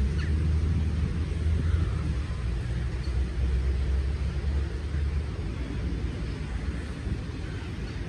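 A steady low outdoor rumble, heaviest in the first five seconds and easing after, with a few faint gull calls from a large resting flock of seagulls.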